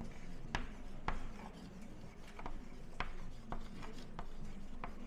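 Chalk writing on a blackboard: light scraping strokes with sharp, irregular taps as the chalk strikes the board.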